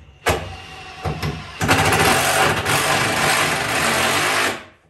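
Makita cordless impact driver sinking a screw through a kitchen cabinet into the wall. It starts with a short burst, runs softer for about a second, then drives hard for about three seconds and stops shortly before the end.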